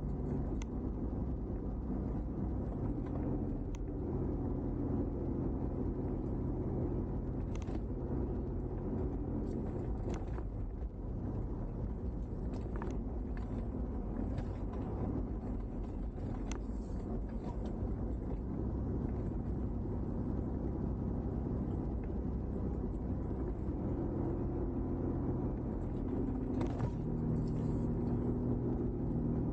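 Car engine and road noise heard from inside the car while it drives down a winding mountain road: a steady low rumble with an engine hum that rises and fades now and then, and a few short clicks.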